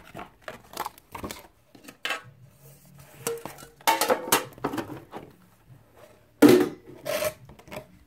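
A metal trading-card collector's tin and its lid being handled: a run of light knocks, clinks and scrapes, with louder clatters about four seconds in and again about six and a half seconds in.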